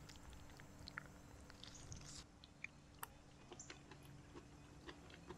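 Near silence, with faint, scattered soft clicks and wet sounds of a chunky smoked trout salad being handled with a utensil.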